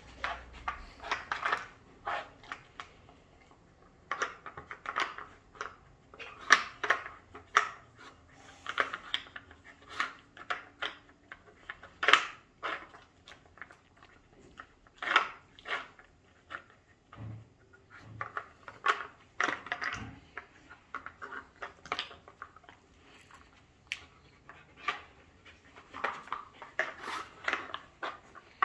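Husky nosing the pegs and sliding lids of a wooden dog puzzle board to uncover hidden treats: irregular wooden clacks and rattles, coming in short bursts every second or two.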